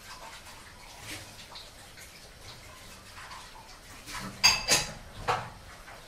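Dishes being washed by hand at a sink: low watery handling sounds, then three sharp clinks of dishware knocking together near the end, the first ringing briefly.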